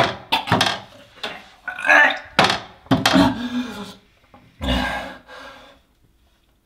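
A man retching and gagging over a toilet bowl: several short, strained heaves in a row, then a pause and two weaker heaves.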